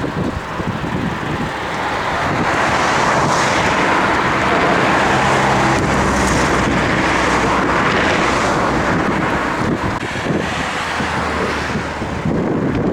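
Vehicle driving on the highway: steady road and wind noise, with a low engine hum showing through in the middle stretch.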